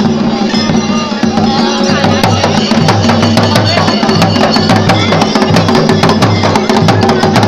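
Garhwali folk music with loud, fast, dense drumming that keeps up a driving beat without a break.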